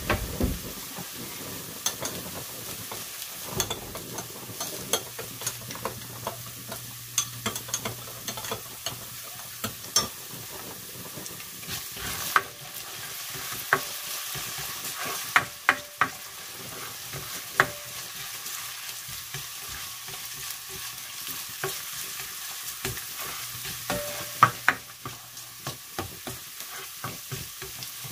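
Chopped onions sizzling in hot oil in a stainless steel pan, with a silicone spatula stirring them and knocking and scraping against the pan in many sharp clicks.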